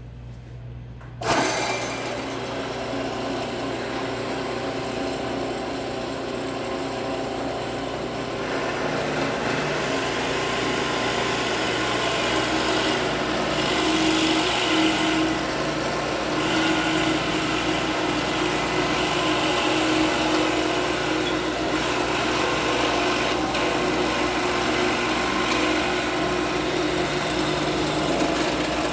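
Drill press switched on about a second in and running steadily, its bit boring into a clamped wooden block to cut a wheel well.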